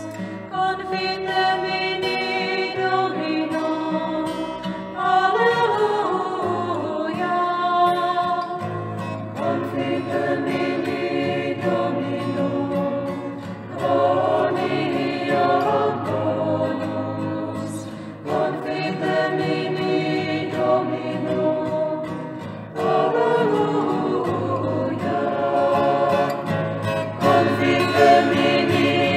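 A group of voices singing a hymn in sung phrases, with short pauses between lines.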